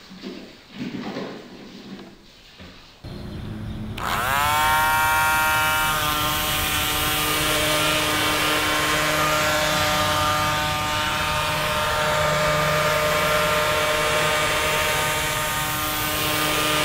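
Small 3-volt toy DC motor spinning a plastic propeller on a Styrofoam boat. It starts about four seconds in with a whine that rises in pitch as it spins up, then runs steady and quite noisy.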